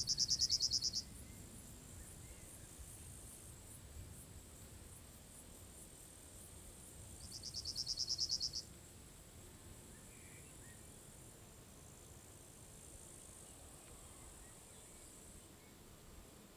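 Insects trilling: two loud, rapidly pulsed high-pitched chirps about a second long, one at the start and one about eight seconds in, with the second swelling up. A faint steady high-pitched insect trill runs underneath.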